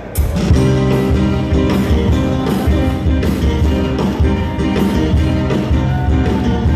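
Live band starting a song right at the start: electric guitars, bass and drums playing loudly to a steady beat.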